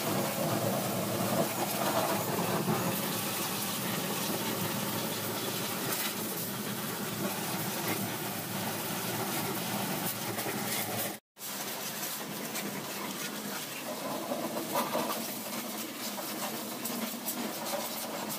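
High-pressure washer jet spraying water against a car's underbody, a steady hiss and splatter of water. The sound cuts out for an instant about eleven seconds in.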